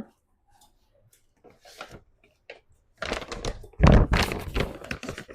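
Kitchen handling noises: faint clicks, then clattering and thunks from about three seconds in, loudest about four seconds in. These are typical of a container being opened and handled while protein powder is readied for the blender.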